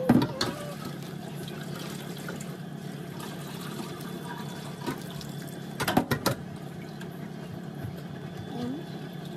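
Graham crackers being snapped by hand and laid into a pan: a sharp crack at the start and a quick cluster of cracks about six seconds in, over a steady low hum.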